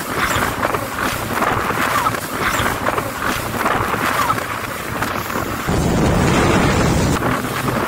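Jet ski running at speed over choppy sea: wind buffeting the microphone over the rush of water and spray, with the engine underneath. About six seconds in, a louder, deeper rushing lasts a second and a half.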